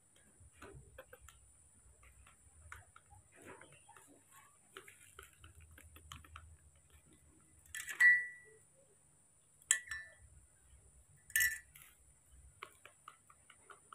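Three sharp clinks of a spoon against a glass, the first ringing briefly. Faint small clicks and rustles run between them.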